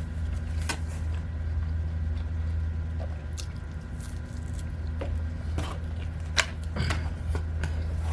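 Close-up chewing and wet mouth sounds of a person eating, with scattered sharp clicks and smacks, the loudest about six seconds in. A steady low hum runs underneath.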